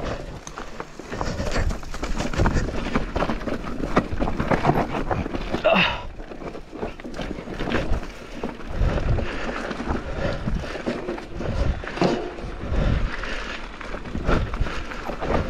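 Focus SAM2 enduro mountain bike running down a rough trail: tyres on dirt and rock, with frequent knocks and rattles from the bike over the bumps and gusts of wind on the microphone.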